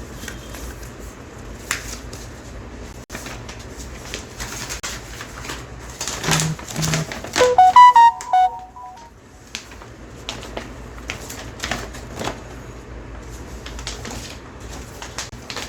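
Paper rustling and handling noises as a printed instruction manual is leafed through. About halfway through, a short tune of a few clear electronic notes sounds once, loudest of all.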